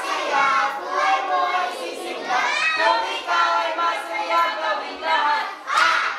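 A group of children singing together in high voices, ending in a loud noisy burst just before the end.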